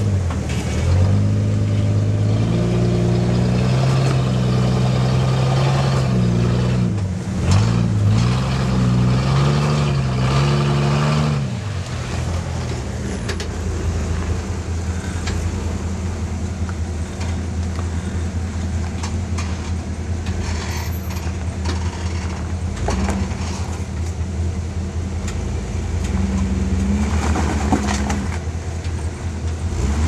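Jeep 4x4 engines labouring while rock crawling up a ledge. For about the first eleven seconds one engine revs hard, its pitch rising and falling as the throttle is worked. After that a quieter, steadier engine note runs at low crawling speed, swelling briefly near the end.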